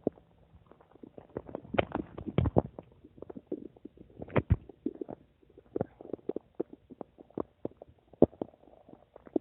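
A human stomach gurgling and rumbling: a quick, irregular string of short gurgles and pops, with a few louder ones about two seconds in, again halfway through, and near the end.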